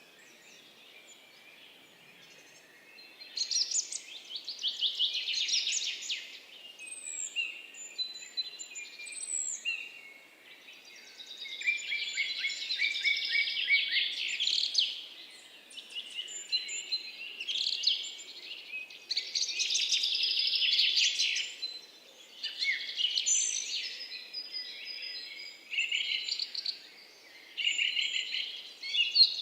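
Birds chirping and singing in quick, high trills and tweets, in bouts a few seconds long with quieter gaps between, over a faint steady background hiss; the first couple of seconds are quiet before the chirping comes in.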